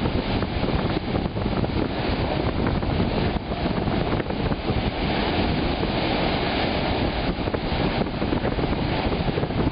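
Lake Michigan waves breaking in steady surf, with strong wind buffeting the microphone.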